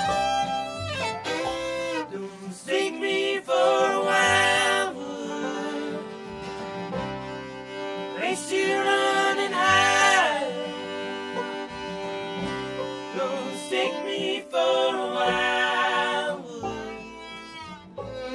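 Bluegrass band playing live: fiddle, five-string banjo, upright bass and guitar, with the band singing together in harmony partway through.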